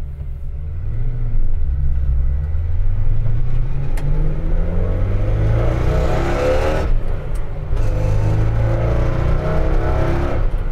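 1953 Ford F-100's engine accelerating away from a stop, heard from inside the cab, its pitch rising for several seconds. About seven seconds in it drops briefly for a gear change on the five-speed Tremec manual, then rises again.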